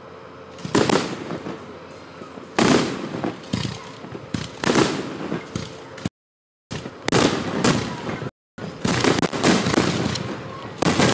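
Aerial fireworks shells bursting: a few separate loud bangs, then bangs coming thick and fast in the second half. The sound cuts out completely twice, briefly.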